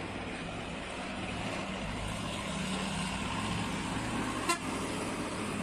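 Loaded cargo truck's engine running steadily as the truck climbs the ramp off a ferry and passes close by. About four and a half seconds in, a single very short horn toot.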